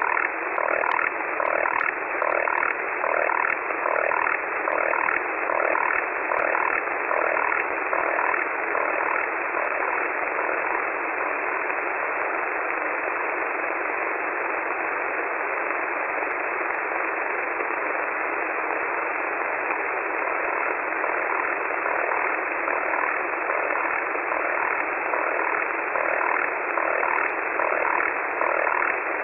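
An unidentified 3-of-6 multitone HF data signal on 14.46 MHz, heard through a shortwave receiver: short blocks of several tones sounding together, repeating in a steady rhythm over a constant hiss of band noise. The tones fade into the hiss for a while in the middle and come back toward the end.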